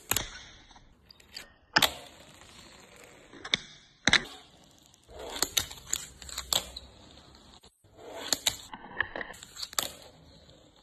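Fingerboard tricks: sharp clacks as the little board's deck and trucks pop off and land on hard stone and wooden obstacles, about a dozen in all and some in quick clusters, with the wheels rolling on the surface in between.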